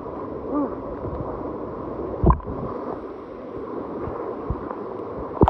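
Water sloshing and splashing close to a phone held by a swimmer, a steady churning wash with two sharp knocks, about two seconds in and again near the end.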